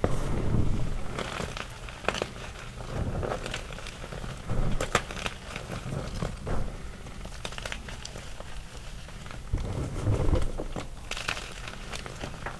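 Small chunks of gym chalk being crushed by hand in loose chalk powder: a steady crumbling crackle with many small sharp snaps scattered throughout, and now and then a soft, dull press into the powder.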